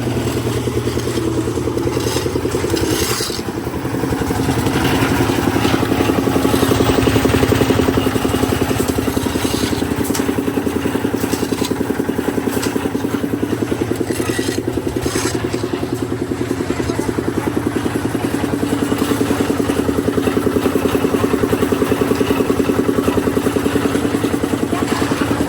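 A small engine on site machinery running steadily at a constant speed, with a brief dip about three seconds in.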